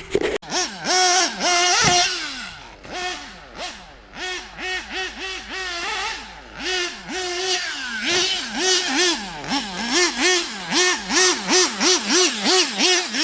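Nitro RC car's Alpha Plus Pro Spec .21 two-stroke glow engine, on an OFNA 063 tuned pipe, revving up and down again and again in throttle blips that come quicker, about two a second, near the end. A brief sharp crack at the very start.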